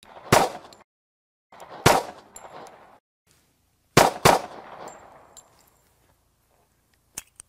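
1911 pistol firing outdoors: single shots about a third of a second in and about two seconds in, then two quick shots about four seconds in, each crack ringing out in a short echo.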